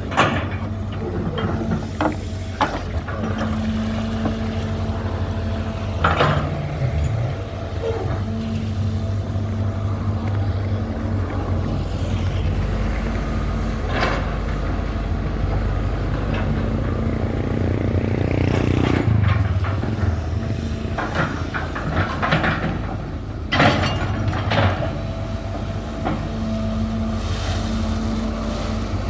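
Hydraulic excavator's diesel engine running steadily under load as the arm digs and swings, with occasional sharp knocks from the bucket and arm.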